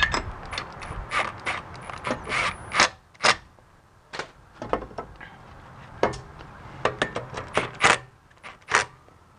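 Cordless impact driver run in short bursts on the retaining screw of a BMW E46 rear brake rotor. The bursts are mixed with sharp metallic clicks and knocks as the rotor is handled on the hub: a cluster in the first three seconds, a few clicks in a quieter stretch, then more bursts over the last three seconds.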